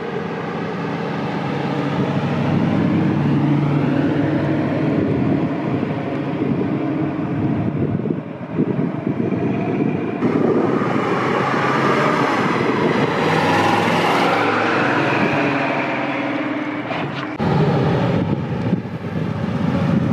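1967 Ford Mustang Fastback GT's 390 V8, breathing through a Flowmaster cat-back exhaust on stock manifolds, driving past under acceleration, its pitch rising through the revs twice. Near the end the sound switches suddenly to a lower, steadier run as the car rolls slowly by close.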